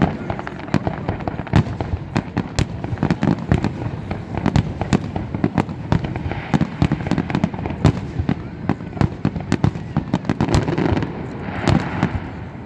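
A fireworks display going off in quick succession, with many sharp bangs a second that thin out near the end.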